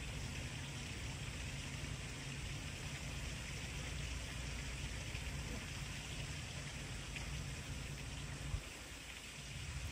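Steady outdoor background noise: an even hiss over a low rumble, with the rumble dropping away for about a second near the end.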